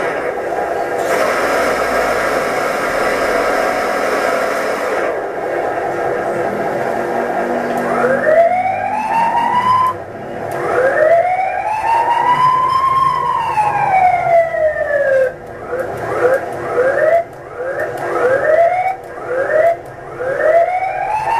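Sound module of a 1/10-scale RC Defender D90 pickup playing through its small speaker: a steady engine-like hum, then from about eight seconds in a siren effect. The siren gives two slow rising and falling wails, then quick rising whoops about one a second.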